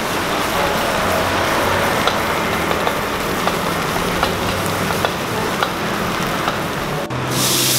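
Goat satay sizzling on a charcoal grill, with scattered sharp crackles of fat dripping onto the coals as it is fanned with a woven bamboo fan; a steady low hum runs beneath. About seven seconds in the sound switches abruptly to a louder, brighter hiss.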